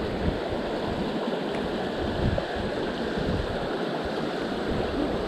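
Creek water rushing and gurgling, heard through a camera held under the surface, with irregular low bumps of water moving against it.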